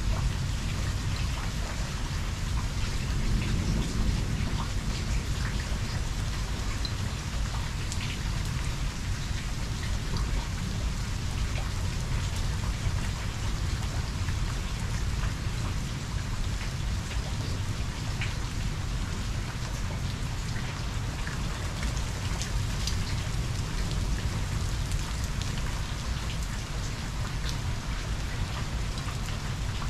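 Steady rain falling on the street, lawn and porch during a thunderstorm, with a low rumble of thunder underneath that swells slightly about three seconds in.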